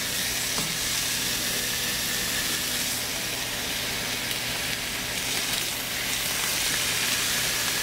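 Bacon strips and sliced deli turkey frying on a Blackstone flat-top griddle: a steady sizzling hiss.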